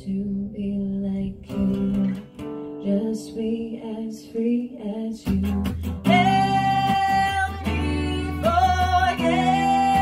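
Acoustic guitar strumming chords with a violin playing along in an instrumental passage. About five seconds in, the music gets louder and fuller, and the violin holds long high notes.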